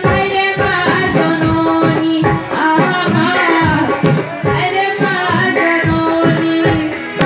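Live amplified music: a woman singing through a handheld microphone over a steady, busy percussion beat with a bright shaking rattle keeping time.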